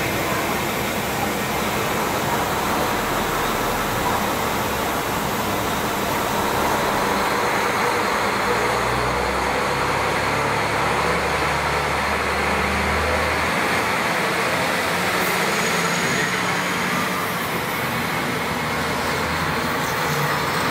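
JR Hokkaido KiHa 40 diesel railcar pulling away from the platform, its diesel engine running under load. The low engine note builds for about thirteen seconds, then drops off suddenly, and the railcar's noise carries on as it moves away.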